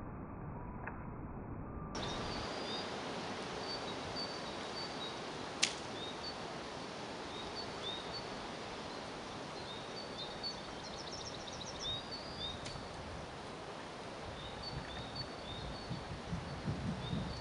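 Atlatl darts striking the target with sharp knocks, twice: a louder one about six seconds in and a lighter one about thirteen seconds in. Behind them is steady outdoor background noise and a small bird chirping over and over.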